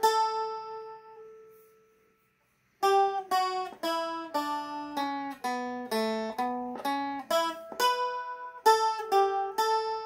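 Seagull Merlin M4 strumstick picked slowly, one melody note at a time. A note rings out and dies away over the first two seconds. After a short pause, a steady run of single plucked notes, about three a second, walks down and back up the fretboard.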